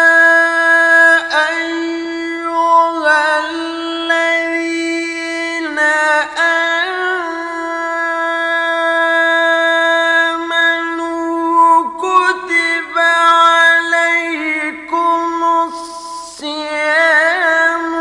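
Music: a solo singing voice holding long sustained notes, broken by quick ornamented, wavering runs.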